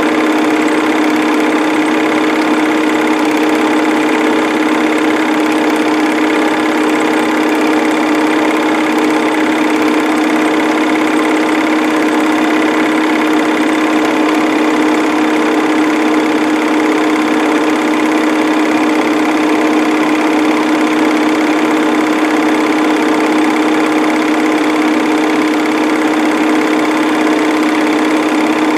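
Home-movie film projector running: a steady, unchanging whir of its motor and film mechanism.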